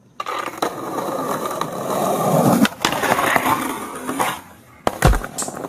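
Skateboard rolling on pavement, then a sharp pop about two and a half seconds in as the skater ollies onto a concrete ledge. The metal trucks grind along the ledge's edge for about a second and a half, and the board lands back down with heavy thuds near the end.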